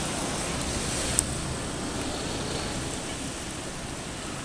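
Steady rushing outdoor background noise, traffic-like, with one sharp click about a second in.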